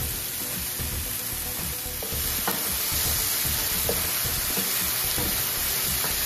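Chopped onion, garlic, tomato and chili sizzling in a nonstick frying pan as oyster sauce goes in and a wooden spatula stirs them, with light scrapes of the spatula on the pan. The sizzle gets a little louder about two seconds in.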